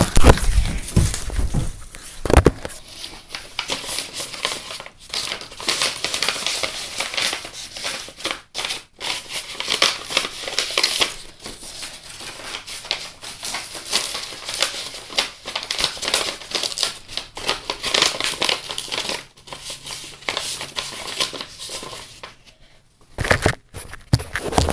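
A sheet of paper being folded and creased by hand, crinkling and rustling in irregular bursts, with a couple of thumps in the first two seconds.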